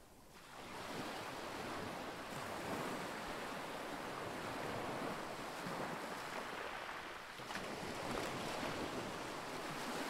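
Sea waves washing in as a continuous rush of surf, swelling within the first second, easing slightly around seven seconds, then building again.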